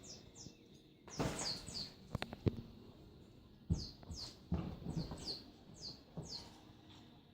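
A cat at play: scuffling and patter with a couple of sharp clicks about two seconds in, under a repeated series of short, high, falling chirps, two or three a second.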